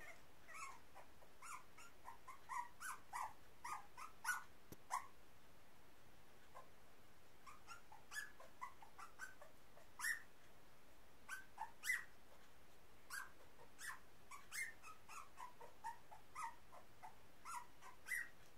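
Young puppies, just starting to walk, making many short, high squeaks and whimpers in quick, irregular runs, with a short pause about a third of the way through.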